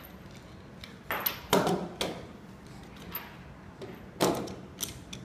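Knocks and clunks of an inspection camera's metal wheel tray and telescopic pole being handled and set down on a wooden table, several sharp hits with the loudest about one and a half seconds in and again about four seconds in.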